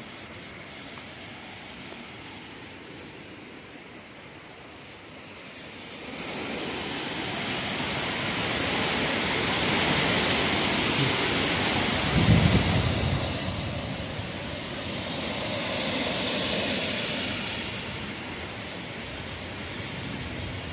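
Hurricane wind and heavy rain: a steady hiss that swells about six seconds in, is loudest near the middle with a brief low rumble, then eases somewhat.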